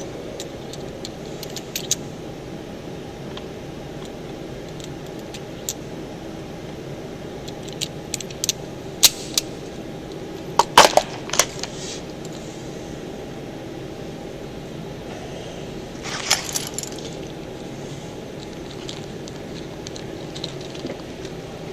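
Scattered metallic clicks and clinks from handling a revolver and its cartridges, in a few short clusters over a steady background hiss.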